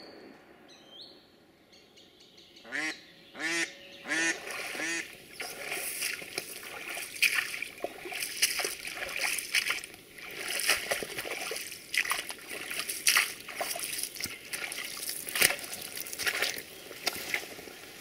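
A decoy hen duck, a pied Semyonov decoy, quacks four times in quick succession about three seconds in. Water splashing and sloshing follows, with sharp splashes.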